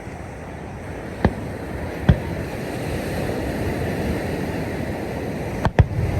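Fireworks going off: sharp single bangs about a second in and about two seconds in, then two quick bangs near the end, over a steady rushing noise.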